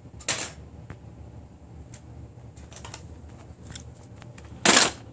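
Toy cars dropped into a plastic bin full of other toy cars: two short clattering crashes about four seconds apart, with a few faint clicks of toys being handled between them.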